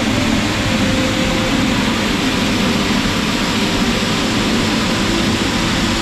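A waterfall of nearly 100 m heard from close beside it: water falling onto rock in a loud, steady rush with a deep rumble.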